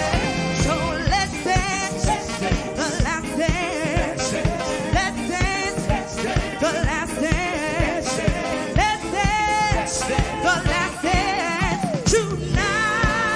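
Live band playing an up-tempo song with a steady drum beat, vocalists singing long, wavering lines over it.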